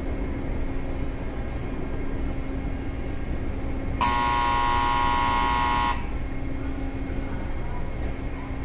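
Steady low hum of a standing 681 series electric train. About four seconds in, the train's horn sounds one steady note for about two seconds, its signal before departing.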